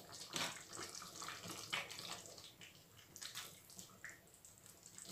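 Noodle soup simmering in a stainless steel pot: faint, irregular bubbling and small pops of the broth, with a ladle stirring through it near the end.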